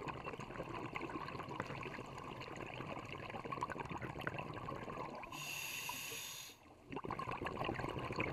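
Underwater sound of scuba breathing: steady crackling and bubbling of exhaled air, with a stretch of hiss lasting just over a second a little past the middle, typical of a breath drawn through a regulator, then a brief lull.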